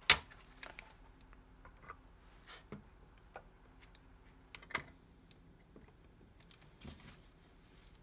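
Scattered plastic clicks and taps of CD handling. A sharp click right at the start as the disc comes off its jewel case hub, and a strong snap about halfway through as the lid of a Sony D-88 Discman is pressed shut.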